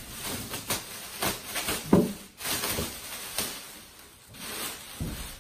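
Clear plastic bag rustling and crinkling as it is pulled off a subwoofer cabinet, with foam packing being handled. A loud thump about two seconds in and a low thud near the end.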